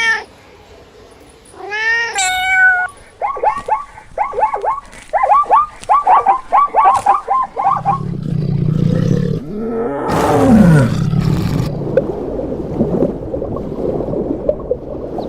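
A run of recorded animal calls: a couple of drawn-out, cat-like meowing cries in the first seconds, then a quick series of short repeated calls, then a lower, rough call with a falling tone through the second half.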